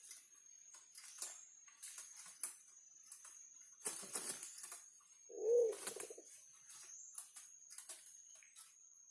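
A forest pigeon giving one short, low coo about five and a half seconds in, over scattered light rustling and clicking and a steady high-pitched whine.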